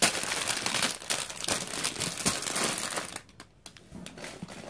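Plastic bags of Lego pieces crinkling and rustling as a hand sorts through a pile of them, busiest in the first three seconds and quieter after.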